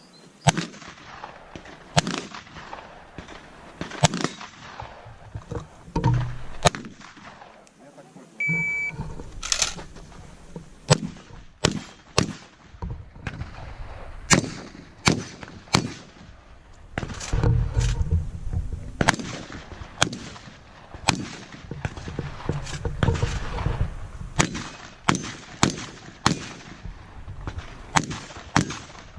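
Shotgun fired in practical-shooting competition: a long string of sharp shots, roughly one a second, some in quick pairs. An electronic shot-timer beep sounds about eight seconds in.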